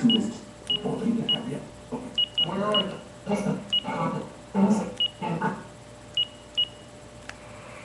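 Mobile phone keypad beeps as keys are pressed on a QWERTY-keyboard phone: about a dozen short, high, identical beeps at uneven intervals, the last a little before seven seconds in. A voice sounds in the background over the first five and a half seconds.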